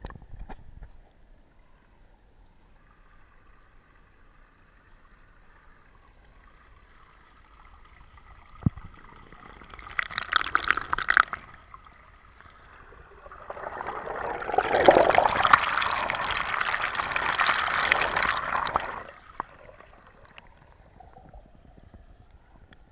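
Small woodland stream trickling and splashing over rocks, picked up close at the water's surface: faint at first, with a single knock, then a short splashing rush, then several seconds of loud rushing water before it falls back to a faint trickle.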